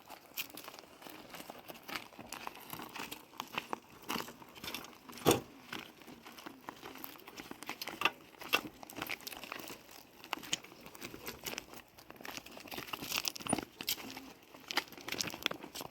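Irregular crinkling and rustling with many light clicks and knocks, as of things being handled, with one sharper knock about five seconds in.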